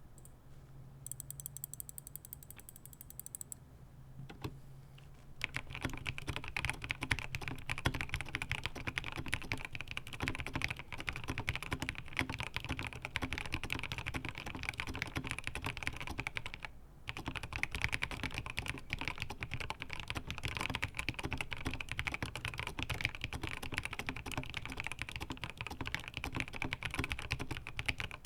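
Fast, continuous typing on a Rama Kara mechanical keyboard with broken-in NK Cream linear switches on a polycarbonate plate. The typing starts about five seconds in and stops briefly about two-thirds of the way through before carrying on.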